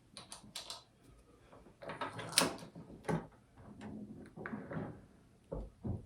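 Metal clicks, scrapes and clunks from a Hornady AP progressive reloading press as its case-activated powder measure is turned down a rotation and the press is cycled to test it. The sharpest clunk comes a little over two seconds in.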